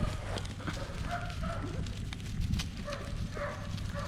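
Belgian Malinois puppies whimpering in short high yips, several in a row, over a steady low hum and a few clicks.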